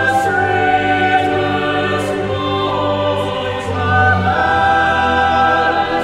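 Vocal ensemble singing slow, sustained chords with orchestral accompaniment; the chord changes about two and a half seconds in and again a little past the middle.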